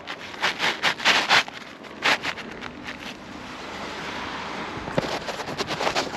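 Asphalt shingles being worked by hand on a roof: a run of rough scraping and crackling strokes, a steadier rushing noise in the middle, then sharper scrapes and clicks again near the end.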